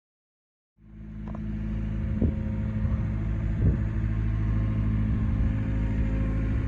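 Takeuchi TB250 mini excavator's diesel engine running steadily. It comes in under a second in, with a few brief chirps over it.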